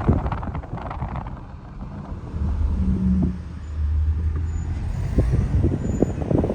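Wind buffeting the microphone, with the low steady hum of a vehicle engine for a couple of seconds in the middle.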